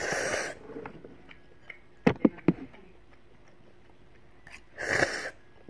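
Noodles slurped twice, each a breathy suck of about half a second, with three sharp taps close together in between, about two seconds in.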